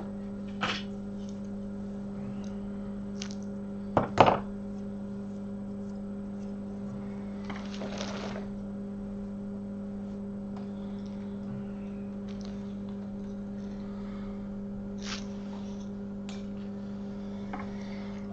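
Steady electrical hum of repair-bench equipment with a few small knocks and clicks of tools being handled, the loudest a quick double knock about four seconds in, and a brief hiss near the middle.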